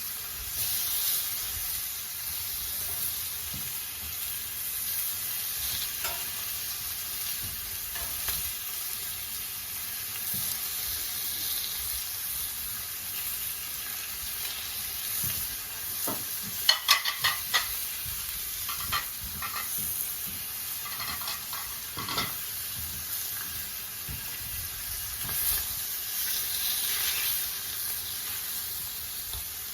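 Chipolata sausages sizzling steadily in oil on a Blackstone flat-top griddle. A few sharp taps sound about halfway through and again a little later.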